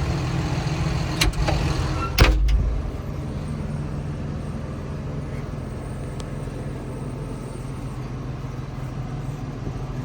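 Caterpillar D6N bulldozer's diesel engine idling steadily. About a second in there are a couple of sharp clicks, then a single heavy thump just over two seconds in as the cab door shuts, after which the engine sounds quieter and muffled.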